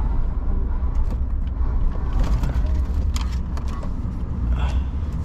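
Steady low rumble of a truck, as heard inside the cab, with a few short clicks.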